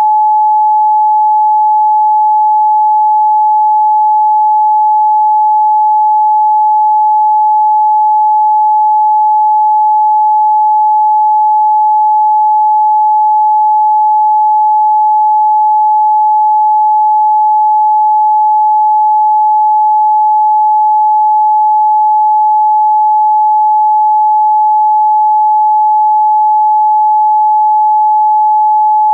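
A pure 855 Hz sine tone held steady at one pitch and level, a plain electronic test tone with no other sound.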